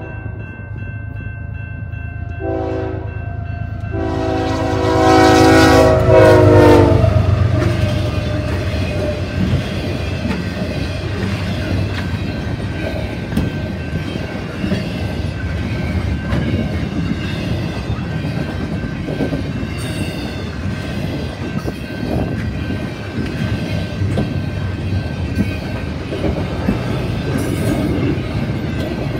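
Canadian Pacific diesel locomotive sounding its horn: a short blast about two and a half seconds in, then a longer, loud blast as the locomotive passes, over the low rumble of its engine. After that, a long intermodal train of double-stack container cars rolls by steadily, its wheels clicking over the rail joints.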